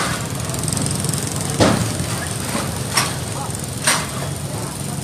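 Steady low rumble of vehicle engines in the street, with three short sharp knocks in the second half as beer crates and bottles are handled off the overturned truck.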